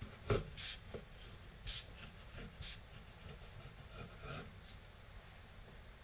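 Serrated bread knife sawing through a soft log of corn-and-bread boilie dough on a wooden cutting board: a few faint, irregular scraping strokes, with a light knock near the start.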